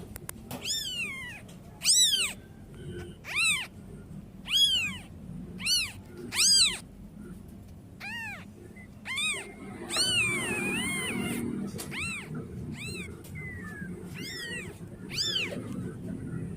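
Young kitten meowing over and over to call its mother: short, high cries, each rising then falling in pitch, about one a second, with a rustling stretch near the middle.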